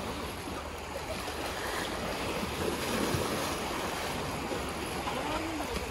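Sea waves washing against a rocky shore, with wind noise on the microphone.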